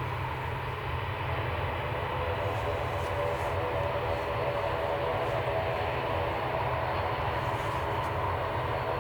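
Jet airliner engines on final approach, a steady distant rumble with a faint whine growing in about halfway through, over wind buffeting the microphone.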